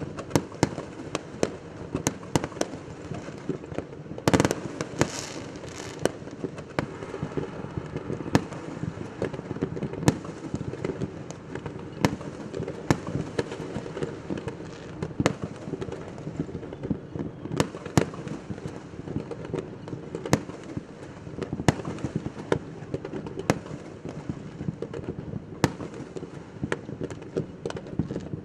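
Fireworks going off continuously: many sharp bangs and cracks at irregular intervals over a steady rumble of more distant explosions, with a louder burst followed by a brief hiss about four seconds in.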